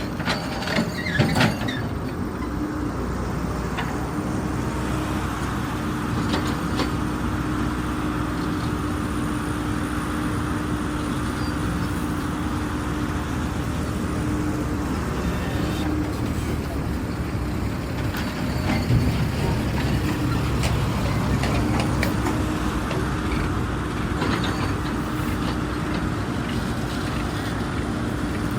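Diesel engine of a hydraulic excavator, a CAT 320 GC, running steadily with a constant hum over a low rumble. A few sharp knocks come about a second in.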